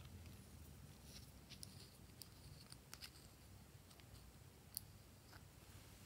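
Near silence with faint scattered clicks and scrapes of a metal spatula working green gel out of a small plastic cap, one sharper click about three-quarters of the way in.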